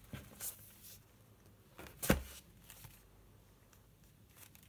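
Handmade paper junk journals being handled on a tabletop: brief rustles of the stitched paper-and-card covers and pages, with one sharp knock about two seconds in and a few faint ticks near the end.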